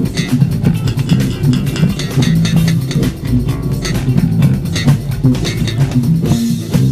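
Four-string electric bass played in busy plucked lines along with a jazz-fusion recording with drum kit.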